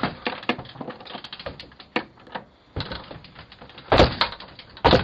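A man kicking at a front door, heard through a Ring doorbell camera's microphone: a run of knocks and rattles, then two heavy thuds about four and five seconds in.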